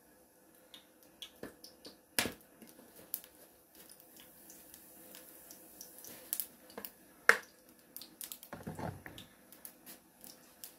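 Kitchen handling at the stove: a small seasoning container being handled over a frying pan, with scattered light clicks. There are two sharper knocks, about two seconds in and about seven seconds in, and a short rustle near the end.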